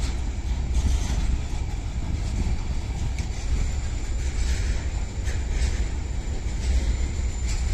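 Double-stack container freight train wagons rolling past close by: a steady heavy rumble of steel wheels on the rails, with scattered clicks from the wheels and a faint steady high whine.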